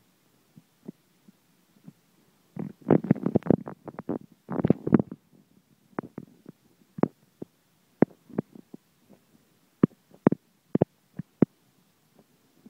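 A hand rubbing a cat's belly fur close to the microphone: crackling rustles and scattered sharp clicks, thickest in two bursts about three and five seconds in.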